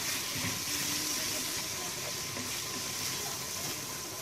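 Cubed potatoes and tomato frying in a pan over high heat, with a steady sizzle. A spatula stirs the pan briefly at the start.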